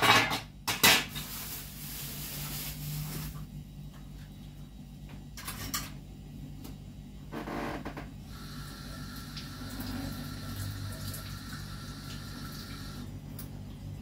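Washing up at a kitchen sink: two sharp clatters of dishes right at the start, then tap water running in stretches, with a few short knocks in between.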